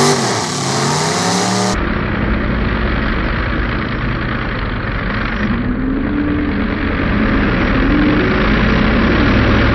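Demolition derby car engines revving hard, their pitch rising and falling, as the cars shove against each other and the concrete barriers.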